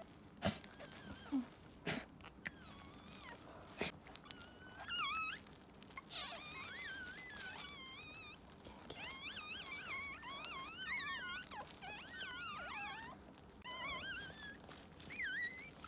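Newborn toy poodle puppy crying in many short, wavering high-pitched squeaks, coming thicker from about halfway through. A few sharp knocks from handling on the towels come before the cries.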